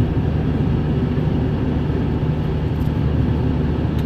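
Steady cabin noise of a Mini Cooper S R53 cruising at about 50 mph and 2000 rpm: the supercharged 1.6-litre four-cylinder hums evenly under road and tyre noise.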